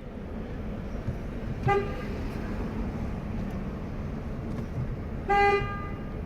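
Car horn honked twice, a short toot and then a longer beep a few seconds later, over the steady low rumble of a car.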